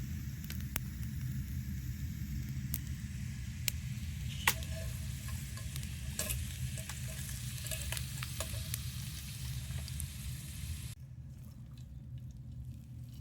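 Food sizzling in a pan over a campfire, a steady hiss with scattered sharp pops, over a steady low rumble. The sizzle cuts off abruptly near the end.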